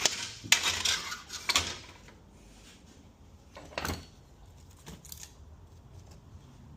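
Metal tools and parts handled on a workbench during a transmission teardown: a few clattering clinks, loudest in the first two seconds, with another sharp clink about four seconds in.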